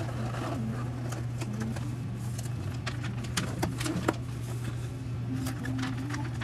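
White cardboard sandwich boxes handled on a counter: lids pressed down and boxes slid into place, with a few sharp taps about three to four seconds in. A steady low hum runs underneath.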